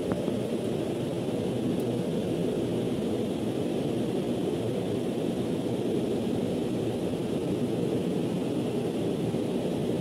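Steady machinery noise from running industrial plant equipment: an even, unbroken din with no starts, stops or changes.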